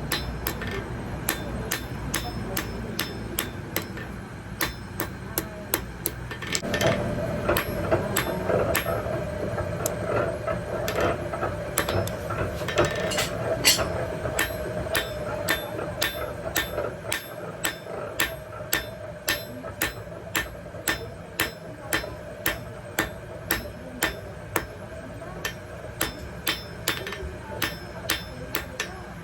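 Blacksmith's hammer striking metal on an anvil in a steady rhythm, about two blows a second. A ringing note sounds along with the blows from about six seconds in until about twenty seconds in.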